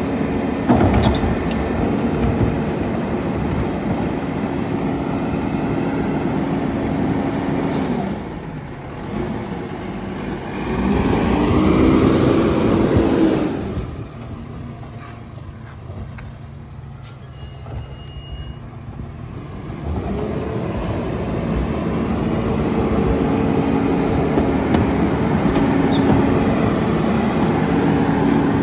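Split-body Lodal side-loader garbage truck running steadily at raised idle to drive its hydraulic cart tippers and packer. About ten seconds in the engine revs up as the truck pulls away, then runs quieter for several seconds before the steady hydraulic running resumes.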